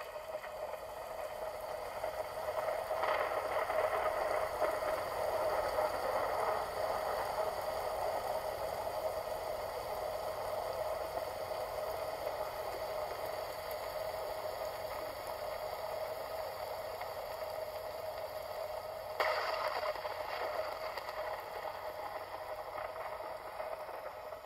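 Hand-held hair dryer running with a steady whine over a rush of air, blowing fluid acrylic paint across a canvas. It swells in right at the start, and there is one short knock about nineteen seconds in.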